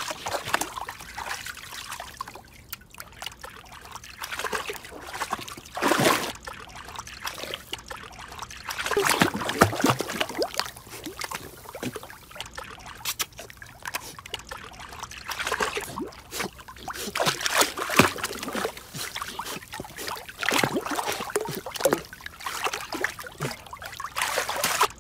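Water splashing and trickling as a golden retriever puppy paddles through a pool, in irregular splashes with louder bursts now and then.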